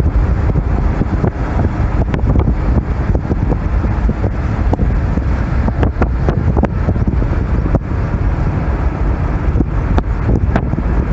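Car driving along a road: a steady low rumble of road and wind noise, with scattered small knocks and ticks.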